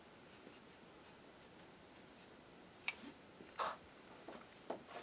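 Quiet room tone, then a few short, sharp clicks and taps in the second half, the sound of small objects being handled on a work surface.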